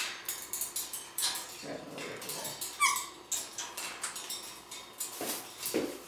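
A parrot's short calls: a quick falling two-note whistle about three seconds in and brief low calls near the end, among scattered rustling and clicking.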